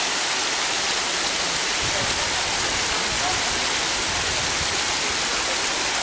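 Waterfall: a steady, even rush of water falling onto rocks.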